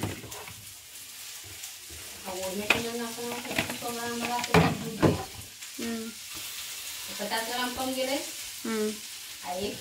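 Clear plastic storage jars knocking and rattling on a cabinet shelf as they are moved about by hand, with a few sharp knocks between about two and five seconds in. A voice talks in between.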